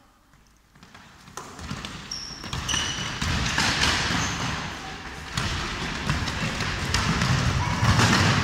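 A basketball bouncing on a wooden gym floor as players run and dribble, with running footsteps and a few short high sneaker squeaks. It starts almost quiet and gets busy after about a second and a half.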